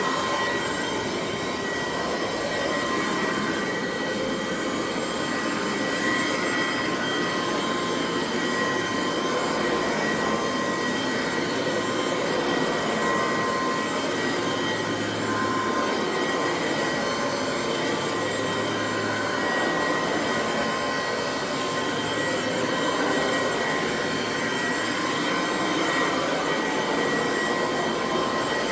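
Dual Sanitronic 80 vacuum cleaner running steadily: the motor makes a whine of several steady tones over the rush of air.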